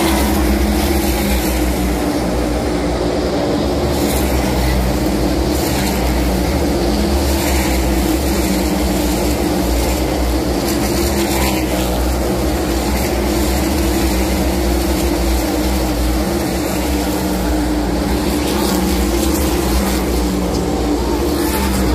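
NASCAR Cup Series stock cars' V8 engines running on the oval, a steady, loud, continuous drone of many engines at once.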